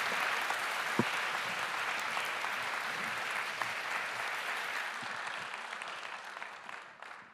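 Audience applauding: steady clapping that fades and dies away over the last two seconds or so.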